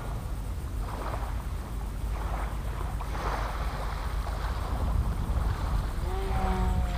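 Wind buffeting the microphone: a steady low rumble with rushing gusts about every second. A faint steady droning tone joins near the end.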